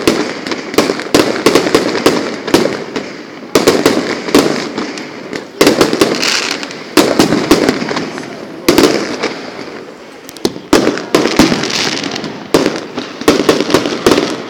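Aerial fireworks bursting: a rapid run of sharp bangs and crackles, with a bigger bang every two to three seconds that fades away before the next.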